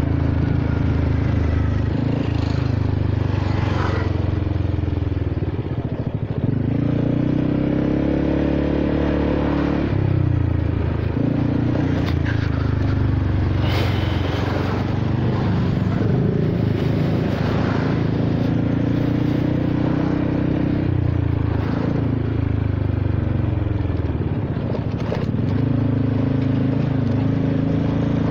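Engine and exhaust of a Honda Forza 300 scooter (single-cylinder four-stroke) under way. The engine pitch falls and rises several times as the throttle is eased off and opened again.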